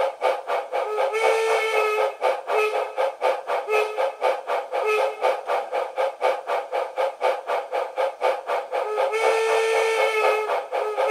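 Steam locomotive sound effects from a SoundTraxx Econami sound decoder, played through a small speaker in a taller 3D-printed baffle with more back space. A steady, fast chuff rhythm runs throughout, with whistle blasts over it: a long one about a second in, a few short toots, and another long one near the end. The sound has little deep bass.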